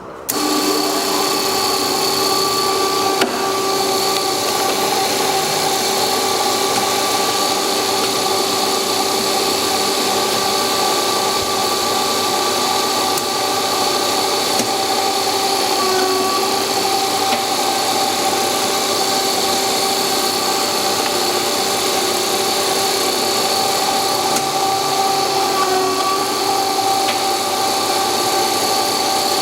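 OMM four-head paper drilling machine running steadily with a constant whine, its three-phase motors spinning the drill heads; it comes on suddenly at the start, with a single knock about three seconds in.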